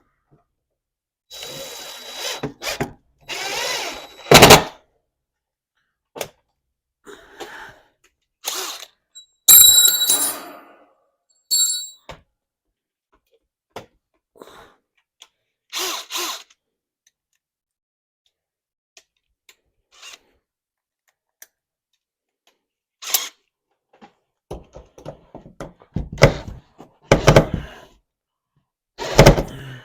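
Power drill run in several short bursts, with knocks and handling clatter between them; the loudest is a sharp knock about four seconds in.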